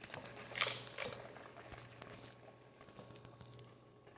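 Faint handling noises: a few soft rustles and light clicks, the loudest about half a second to a second in, over a steady low hum.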